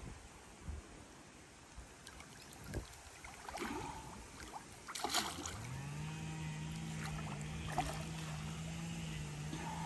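A hooked catfish thrashing at the water's surface beside a landing net, giving several short splashes, the loudest about five seconds in. A steady low motor-like hum comes in about halfway through.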